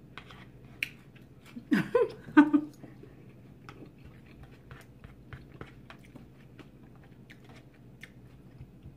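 Close-up chewing of a mouthful of veggie nachos, with many small wet clicks and smacks. A couple of short hummed vocal sounds come about two seconds in.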